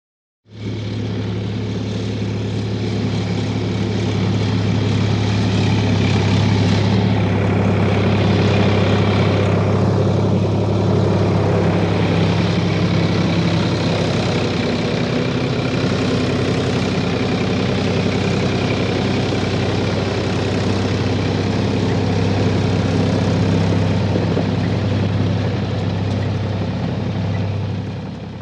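Heavy engine running steadily at a constant speed with a deep, even hum. It starts about half a second in and fades out near the end.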